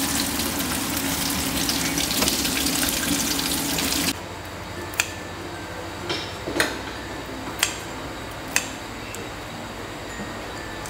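Water running steadily from a tap for about four seconds, then cutting off abruptly. A quieter stretch follows with a few sharp clicks about once a second.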